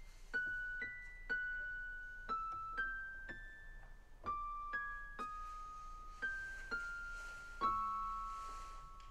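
Soft film-score music: a slow, high melody played one note at a time on a keyboard, in three-note phrases, each note left to ring. Near the end a last note sounds over a low note beneath it and fades away.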